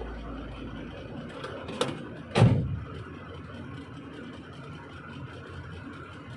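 Diesel engine idling steadily, with two sharp knocks about two seconds in, the second louder and heavier with a short ring after it.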